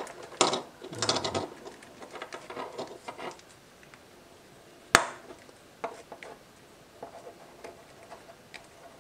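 Hands handling a motorcycle turn signal and its rubber-sheathed wiring on a wooden bench: rustling and light clicks while an acrylic spacer is worked onto the signal, with one sharp click about five seconds in.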